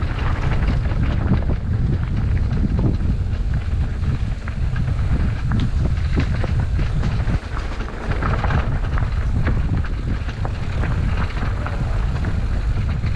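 Wind buffeting the microphone during a ride on an electric mountain bike, with scattered clicks and rattles from the bike.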